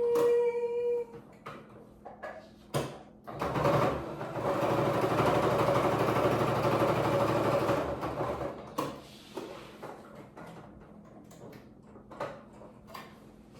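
Sewing machine running steadily for about four and a half seconds, stitching a coin pocket, starting a few seconds in and stopping suddenly. Before and after it come a few sharp clicks and knocks of handling, and a sung note ends about a second in.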